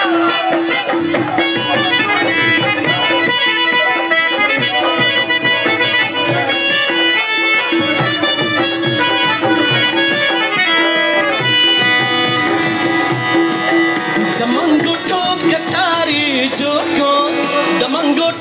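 Live Afghan folk dance music: tabla drumming in a fast, steady rhythm under a harmonium melody with a held drone note, accompanying the attan dance.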